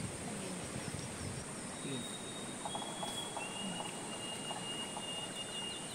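Forest ambience: a steady high insect drone, with a bird's long whistled notes, each a step lower than the last, from about two seconds in. Faint voices murmur underneath.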